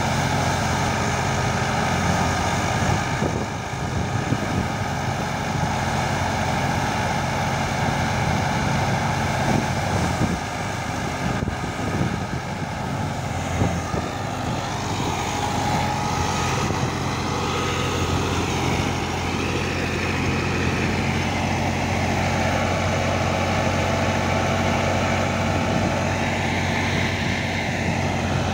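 Massey Ferguson 385 tractor's four-cylinder diesel engine running steadily under load, driving a wheat thresher through its PTO. The engine and the thresher run together in one constant drone.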